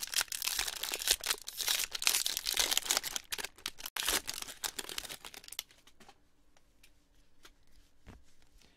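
Foil wrapper of a baseball card pack being torn open and crinkled by hand, for about five and a half seconds, then only fainter, scattered light clicks.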